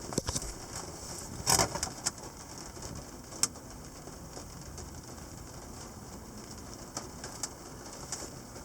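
Light rain falling, a steady hiss with scattered sharp taps of drops and a louder short rush about a second and a half in.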